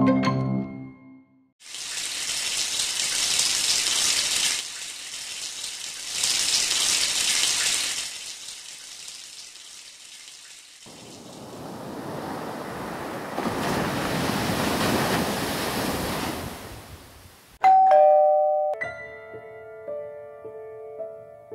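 Waves of hissing noise swell and fade, then a doorbell rings loudly about eighteen seconds in with two falling notes, ding-dong, followed by soft lingering tones.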